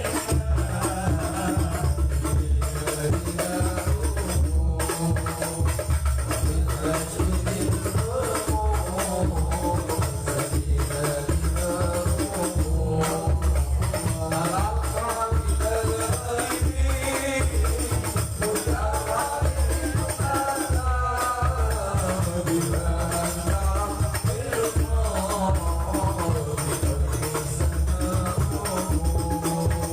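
Sholawat devotional singing: a male voice sings a winding melody over a steady beat of rebana frame drums with jingling tambourines.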